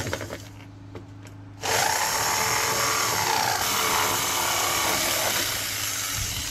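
Corded electric jigsaw starting up about a second and a half in and running steadily as it cuts a round hole through a leaf blower's plastic fan cover.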